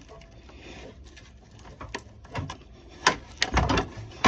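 A man breathing heavily as he works, with several sharp clicks and knocks of hand work in the second half.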